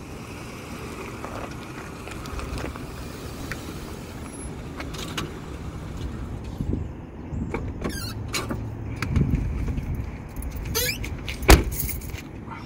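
Outdoor traffic ambience: a steady low rumble of passing cars, with scattered sharp clicks and knocks in the second half, the loudest about a second before the end.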